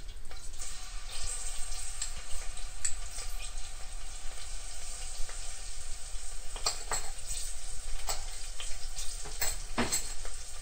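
Hot oil sizzling in an aluminium pressure cooker as ginger-garlic paste is fried in it. In the second half a fork stirring the paste scrapes and clicks against the pot bottom a few times.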